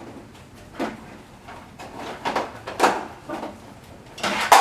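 Plastic clunks and sliding knocks from an IQAir HealthPro Plus air purifier's housing as its side arms are pulled out to full extension: several short knocks about a second apart, the loudest near the end.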